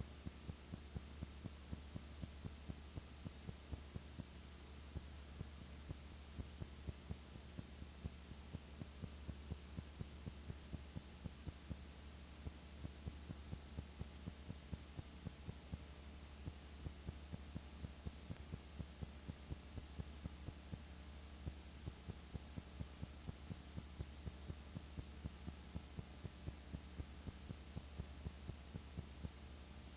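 Faint steady low electrical hum with a soft regular click about three times a second, the empty audio track of a silent home-movie transfer.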